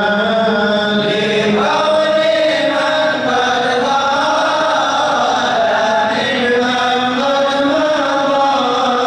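Male chanting of an Arabic qasidah, a devotional poem, sung over a microphone in a slow melody with long, wavering held notes.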